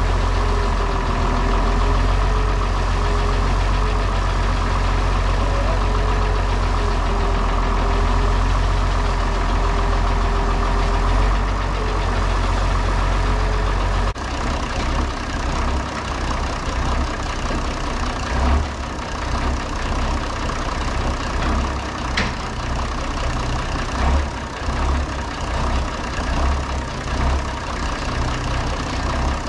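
International 1256 tractor's diesel engine idling, a steady low hum. About halfway through the sound changes abruptly to a more uneven, pulsing rumble, with a few faint metallic clicks.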